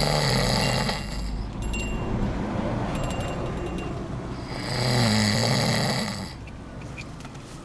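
A man snoring heavily while sleeping off drink: two long, loud snores with a low buzz, about four seconds apart, with a few faint high clicks between them.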